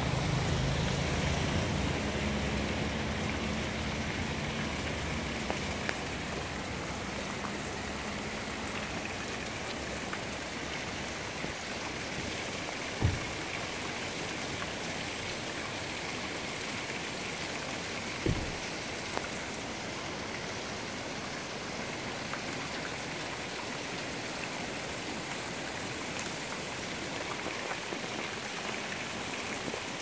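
Steady rushing and splashing of a shallow mountain stream. A low rumble fades out over the first several seconds, and two dull thumps come about five seconds apart midway.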